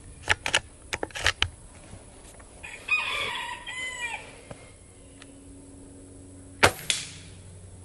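Gamo Arrow .22 PCP air rifle's bolt being cycled with a few sharp clicks, then a single loud shot near the end. A rooster crows in the background about three seconds in.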